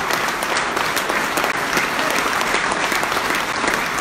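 An audience applauding, many people clapping in a steady, dense patter.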